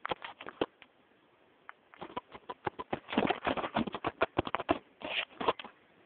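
Dog sniffing at close range: rapid short sniffs, several a second, in a brief burst at the start and a longer run of many sniffs from about two seconds in.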